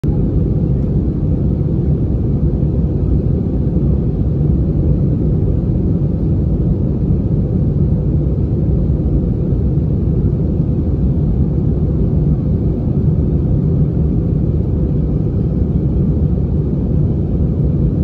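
Jet airliner cabin noise in flight: a steady low rumble of engines and airflow heard from inside the cabin.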